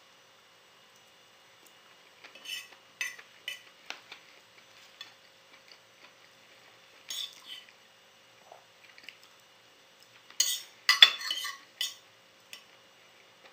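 Metal fork and knife clinking and scraping on a plate while eating: scattered small clicks, then a louder cluster of clatter and scraping about ten seconds in.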